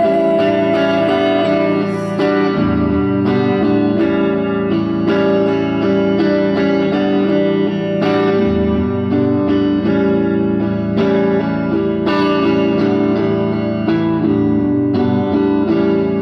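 Live music: a solo guitar strums chords over and over in an instrumental passage between sung lines. A held higher note fades out about two seconds in.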